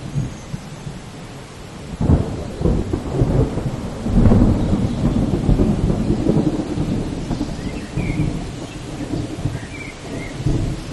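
Steady rain with a roll of thunder that breaks suddenly about two seconds in, swells into a long low rumble and eases off near the end.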